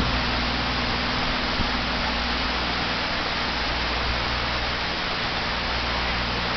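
Steady, even hiss with a low hum beneath it, unchanging throughout and with no distinct events apart from one faint tick.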